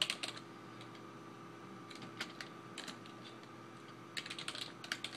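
Typing on a computer keyboard: a quick burst of keystrokes at the start, a few scattered ones in the middle and a faster run near the end, over a faint steady hum.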